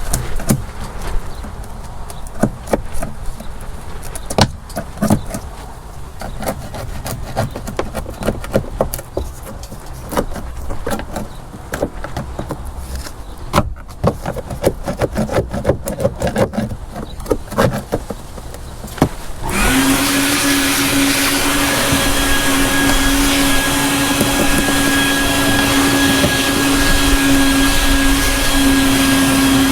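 Irregular hand-tool scraping and tapping on the boat's surface, then about two-thirds of the way through an electric motor switches on and runs with a steady hum and hiss, like a shop vacuum or power sander.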